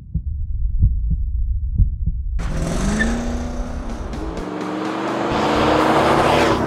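Deep paired thumps like a heartbeat for about two seconds. Then a 2011 Ford F-150's V8 comes in suddenly through a Flowmaster Force II cat-back exhaust, rising in pitch as the pickup accelerates toward and past. It is loudest just before the end, then drops away.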